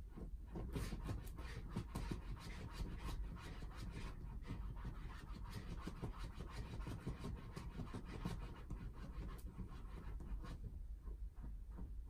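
A pet making quick, repeated rasping strokes, several a second, close to the microphone; they stop near the end.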